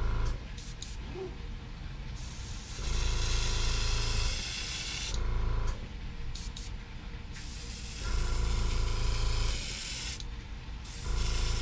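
Iwata airbrush spraying paint onto a lure, hissing in bursts of one and a half to two and a half seconds: about three seconds in, about eight seconds in and near the end. A steady low hum runs underneath between the bursts.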